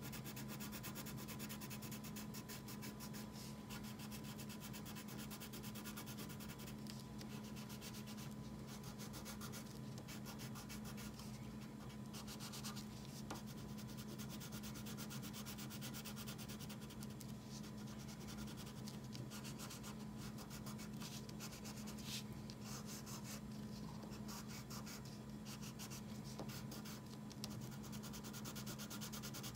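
Crayon rubbing on paper in rapid back-and-forth strokes as an area is coloured in, over a faint steady low hum.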